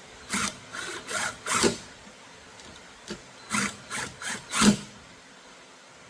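Short scraping and rubbing strokes of steering wheel parts being handled and worked into place by hand, in two runs of four strokes each, about three seconds apart.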